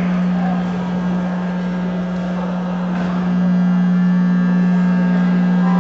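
Music over the sound system: a long sustained held chord that grows louder and fuller about three seconds in.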